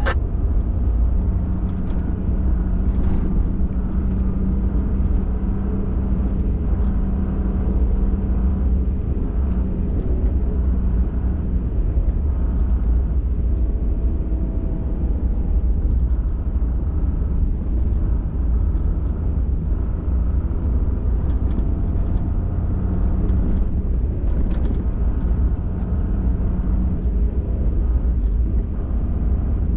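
Off-road pickup truck driving steadily along a trail, its engine and tyres giving a continuous low rumble with a held engine tone, and a few light ticks on top.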